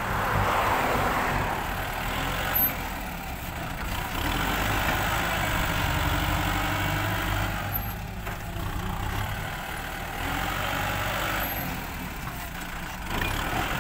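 Kubota M6040SU tractor's diesel engine running under load as it pushes fill dirt with its front blade, its sound swelling and easing as the tractor works back and forth.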